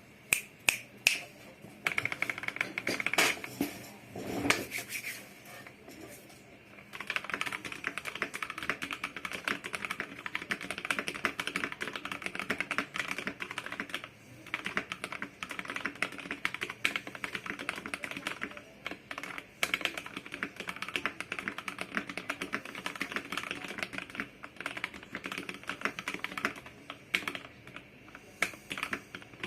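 Mechanical keyboard with lubed switches and stabilizers being typed on. A few separate key presses and a deeper press about four and a half seconds in give way, from about seven seconds on, to fast continuous typing.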